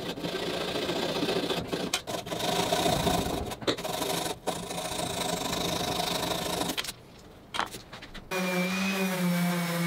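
Japanese flush-trim saw rasping back and forth through a wooden dowel plug, cutting it flush with a frame corner, with short breaks between strokes. About eight seconds in, a random orbit sander starts and runs with a steady hum.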